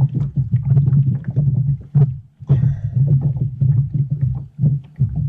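Fishing reel being cranked while fighting a blue catfish: a low pulsing hum with many rapid, irregular clicks.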